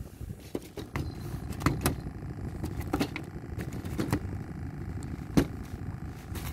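A caught fish handled in a landing net on a bamboo deck: a string of sharp knocks and clatters, about seven, the loudest a little over five seconds in, over a steady low rumble.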